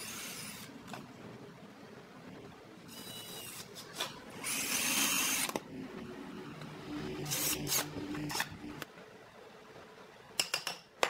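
Cordless drill running in short bursts into round-log wood, the longest and loudest burst about halfway through, with a steadier motor hum after it. A few sharp knocks come near the end.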